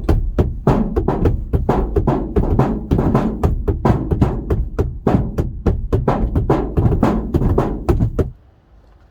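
Percussive background music: a quick beat of sharp drum and wood-block-like strikes over a steady bass, cutting off abruptly near the end.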